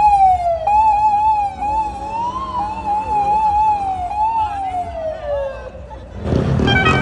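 Electronic police car siren in a fast up-and-down warble, broken briefly about half a second in, then rising and falling more slowly. It winds down in a long falling glide and stops about six seconds in.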